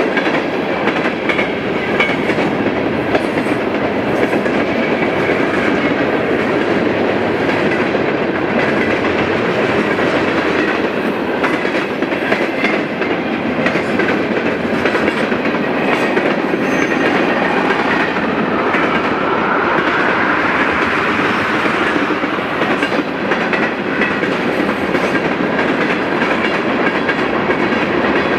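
Freight train cars rolling past close by: a steady loud rumble with the clickety-clack of steel wheels over the rail joints. A higher whine rises and falls about two-thirds of the way through.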